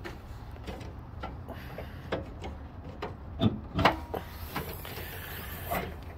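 A pickup truck's hood being released and raised: a string of sharp latch clicks and knocks, then a hiss near the end as the hood goes up.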